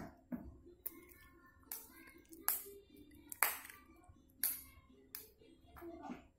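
Hand claps, about one a second in a steady beat, keeping time with a children's song over quiet backing music.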